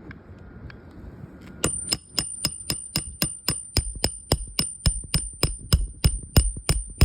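Hammer driving a roofing nail into a new shingle: a rapid, even run of about twenty ringing metallic strikes, three to four a second, starting about a second and a half in and landing heavier toward the end.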